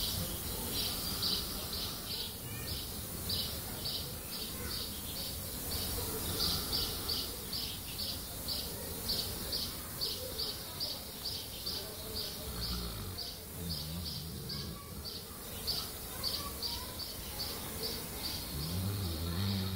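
High, evenly paced chirping, about two to three chirps a second, over a low rumbling background.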